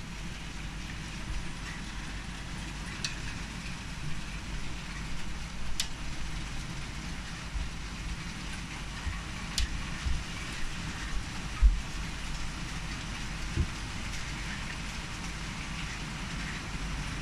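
Hail mixed with rain pelting a wooden deck: a steady hiss with a few sharp ticks of hailstones striking.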